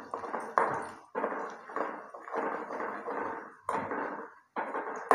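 Steel spoon scraping and knocking against an aluminium karahi while chopped onion and garlic are stirred in oil, in several separate strokes.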